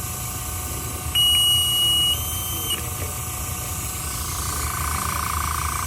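Rotation alarm giving one steady, high-pitched electronic beep of about a second and a half, starting about a second in, after the arm failed to detect its magnet. Under it a small air pump runs steadily, with a hum that grows louder near the end.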